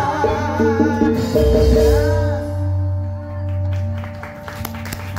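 Javanese gamelan music with a female sindhen singing over it, coming to its close: the singing and most of the ensemble stop about two and a half seconds in, and a low sustained tone rings on and fades.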